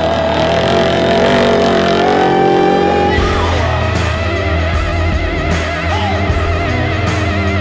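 Rock music with long held notes that waver in pitch over a steady bass.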